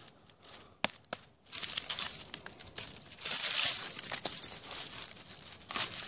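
Dry fallen leaves and twigs rustling and crackling under a hand clearing the leaf litter away from a porcino mushroom, in uneven bursts, with two sharp clicks about a second in.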